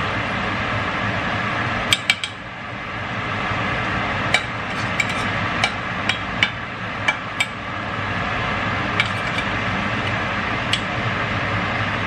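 Steak sizzling in butter in a stainless steel frying pan as it is basted, with a metal spoon clinking sharply against the pan about a dozen times at irregular moments. The sizzle drops briefly about two seconds in.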